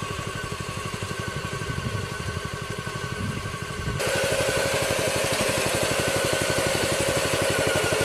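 Engine of a tractor-drawn lettuce harvester running steadily with a fast, even beat, getting louder about four seconds in.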